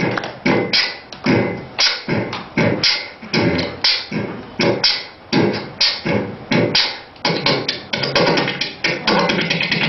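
Human beatboxing imitating a drum kit: a steady beat of mouth-made drum hits, about one and a half a second, with the pattern getting busier in the last few seconds.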